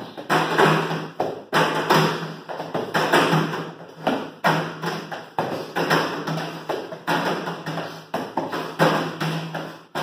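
Hands slapping down on floor mats and on a folding chair's seat in a fast, uneven run of taps and thuds, as two people step their hands up onto the chair and back down between push-ups.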